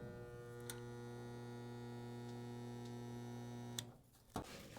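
Harbor Freight resistance spot welder humming steadily as it holds current through a spot weld on the sheet-metal floor pan, then cutting off abruptly near the end.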